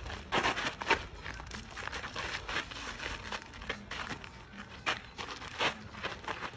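Boxing gloves smacking as punches land during sparring: a scatter of sharp slaps, the loudest about a second in, with sneakers scuffing and shuffling on gritty pavement between them.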